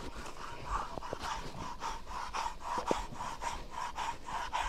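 Curry comb rasping over a horse's coat in quick, even strokes, about three a second, working loose dust and shed hair.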